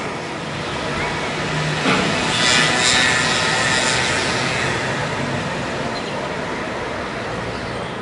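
Aircraft engine drone over the fire, a steady rushing noise that swells to its loudest about two to three seconds in and then holds steady.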